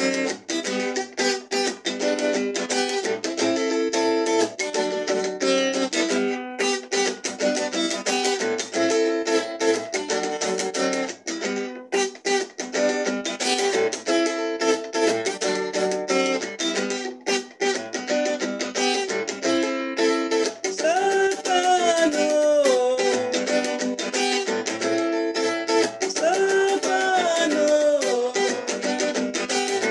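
Acoustic guitar strummed in steady chords for practice. A voice sings along briefly, twice, in the second half.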